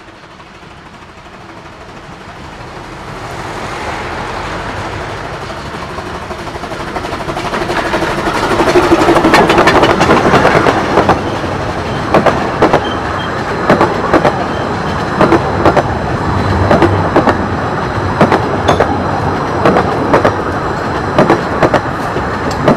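Narrow-gauge steam locomotive "Northern Rock" approaching and running past, growing louder to a peak about nine seconds in. A long rake of coaches then rolls by, with steady paired clicks of the wheels over the rail joints.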